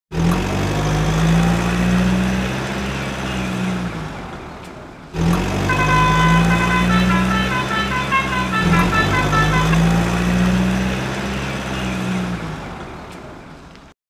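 Truck telolet air horn: long, deep horn notes with a quick, jingling melody of stepped high tones over them in the middle. The sound breaks off about five seconds in, starts again and fades near the end.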